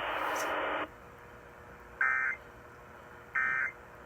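Emergency Alert System data tones ending an alert: about a second of radio hiss, then two short warbling bursts of the end-of-message code, about a second and a half apart, beginning about two seconds in.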